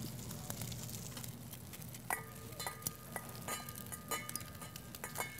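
Light clinks of a metal spoon against small dishes and bowls while dressing and salad ingredients are spooned out. The clinks come often from about two seconds in, several ringing briefly, over a steady low hum.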